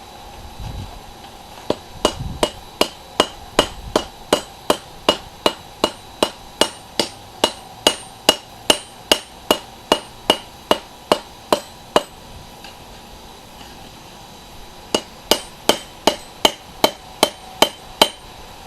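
Hand hammer forging a railroad spike on an anvil: steady blows about three a second, each with a short metallic ring. The blows stop about twelve seconds in, then start again about three seconds later.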